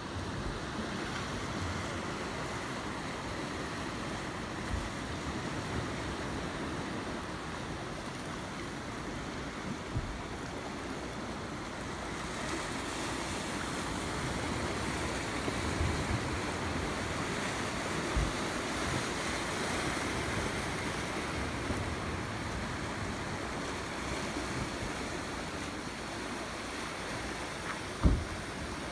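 Sea surf washing over a rocky shore, a steady rush of water, with a few short low bumps, the loudest near the end.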